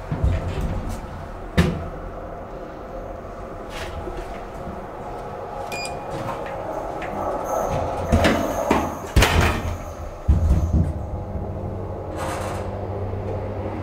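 Deve-Schindler hydraulic elevator car: a couple of knocks, a short beep as a button on the car panel is pressed, then the car doors close with a series of thuds and rattles. After that the hydraulic drive starts with a steady low hum as the car sets off.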